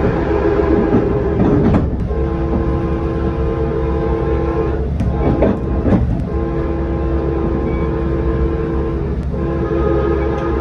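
Narrow-font Nathan K5LA five-chime air horn on an EMD F59PH locomotive, heard from inside a passenger coach. It sounds four long blasts with short breaks between them. Steady rolling rumble and a few wheel clicks over rail joints run underneath.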